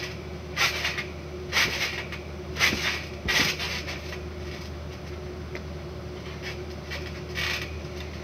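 Backyard trampoline creaking and rustling under a bouncing child, a short burst with each bounce roughly once a second for four bounces, then one more near the end. A steady low hum runs underneath.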